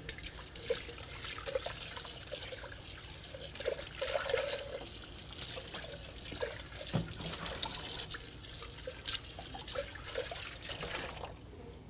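Kitchen tap running into a stainless steel sink, water splashing, with a few light knocks; the water is shut off abruptly near the end.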